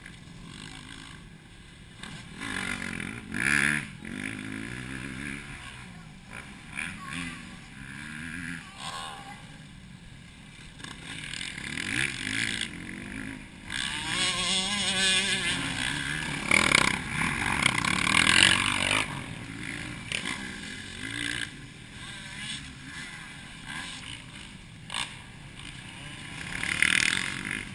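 Motocross dirt bike engines running on the track, revving up and down as the bikes ride through the corners, loudest in the middle and again near the end.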